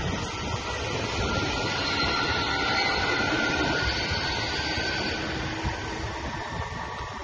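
Italo ETR675 electric high-speed trainset passing and moving away: steady rumble of wheels on rail with a faint high whine, fading over the last couple of seconds.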